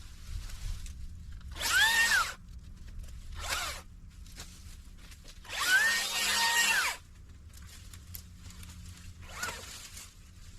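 A power drill run in three short trigger pulls, the last the longest, its motor whine rising, holding and falling with each pull, over a low steady hum.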